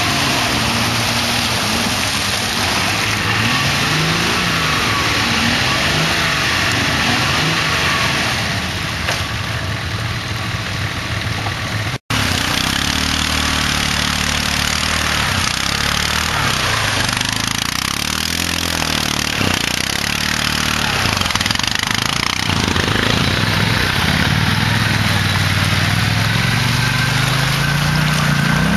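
Off-road vehicle engines revving while stuck in deep mud, the pitch rising and falling as the throttle is worked. About twelve seconds in, a sudden cut switches from a 4x4's engine to an ATV's engine revving as its wheels churn through mud and water, the revs climbing near the end.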